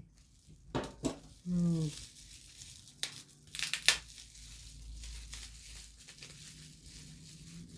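Plastic packaging crinkling as it is handled, with a cluster of sharp clicks and taps about three to four seconds in.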